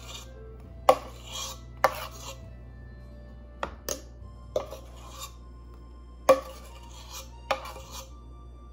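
A spatula scraping red velvet cake batter out of a stainless steel pot into a metal baking pan, with about seven sharp clinks and taps of the spatula against the pot, some followed by a short scrape.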